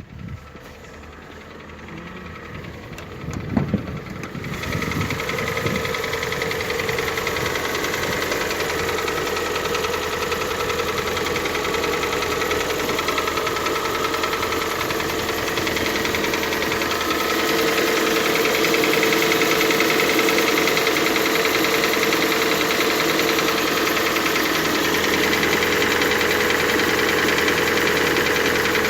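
Hyundai/Kia G4NA 2.0-litre four-cylinder petrol engine running cold, with a knock heard while cold. A sharp knock at the very start and a few loud bursts, then about four seconds in the engine settles into a steady idle that gets a little louder later on.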